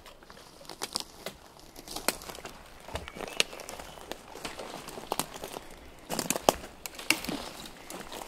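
Boots walking over dry forest litter, twigs and dead branches snapping and crackling underfoot in irregular steps, with a denser run of snaps about three-quarters of the way in.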